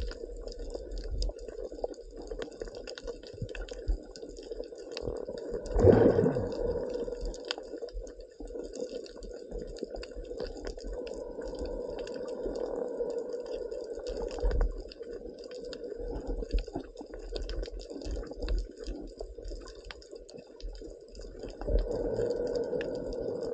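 Muffled underwater sound of water moving around a submerged camera, a steady dull rushing with scattered crackles and low knocks. It swells louder about six seconds in and again near the end.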